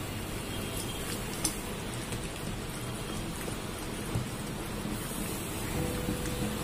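Silicone spatula stirring wet brownie batter in a plastic bowl, with a few light taps against the bowl, over a steady hiss.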